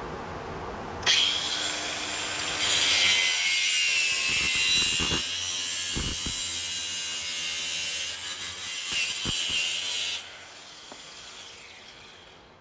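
A power tool running with a high whine and hiss. It starts about a second in, grows louder a moment later, and cuts off suddenly near the end.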